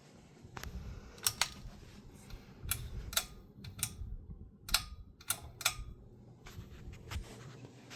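A series of irregular sharp clicks, about a dozen, some in quick pairs, over a low steady hum.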